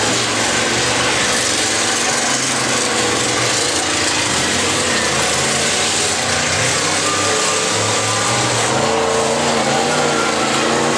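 Several demolition derby cars' big engines running and revving together in a dense, steady, loud din, their pitches rising and falling.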